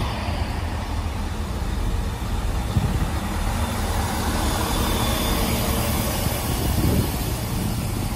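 Class 166 diesel multiple unit arriving at the platform: its underfloor diesel engines run with a steady low rumble under the rolling noise of the wheels on the rails as it slows for the stop.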